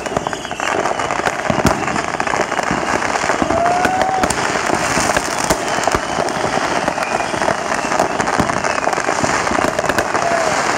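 Many fireworks going off at once: a dense, continuous crackle of rapid pops and bangs, with a few short whistles.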